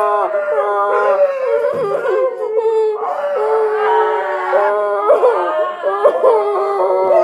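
Howling: a high voice holds long, wavering howls one after another and cuts off abruptly at the end.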